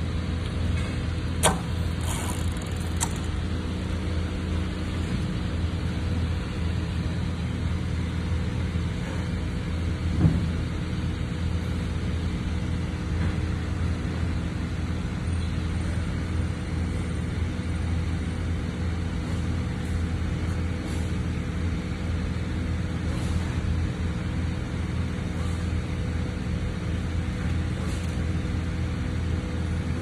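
Steady low mechanical hum, with a light click about a second and a half in and a sharper one about ten seconds in.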